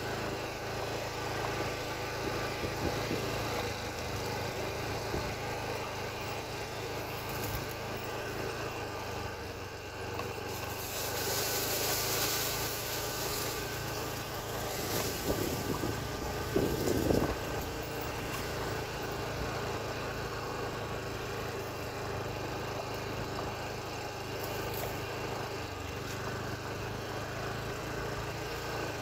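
Motorcycle engine running steadily while riding along a dirt trail. A burst of hiss comes about eleven seconds in, and a few sharp knocks, the loudest sounds, come a few seconds later.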